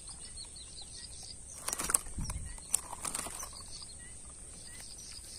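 Freshly landed snakehead fish thrashing and flapping as it hangs from the fishing line, in two short bouts of slaps and rustles about two and three seconds in. A steady high insect drone runs underneath.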